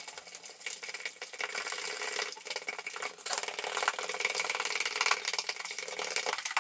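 Fork beating egg and golden syrup by hand in a plastic mixing bowl: rapid, steady clicking and scraping of the fork against the bowl.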